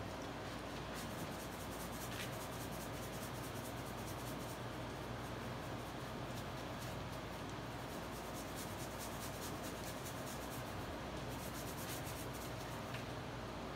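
Faint rubbing and light scratching of plaster-coated hands smoothing wet plaster over a sculpture, with many small ticks, over a steady low hum.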